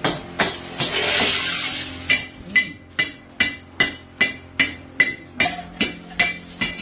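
Scrap aluminium pieces clattering down in a rush about a second in, then a steady series of sharp, ringing metal-on-metal strikes at about two and a half a second, like hammering.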